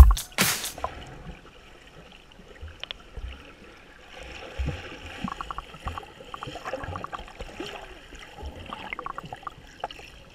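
Water heard from a submerged action camera: bubbling and water movement with scattered small clicks and ticks while a snorkeling swimmer moves close by.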